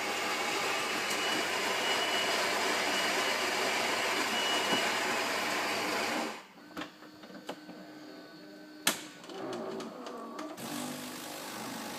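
Saeco bean-to-cup espresso machine's built-in grinder grinding beans steadily for about six seconds, then stopping. After that come quieter clicks and a hum as the machine moves on to brewing the short black.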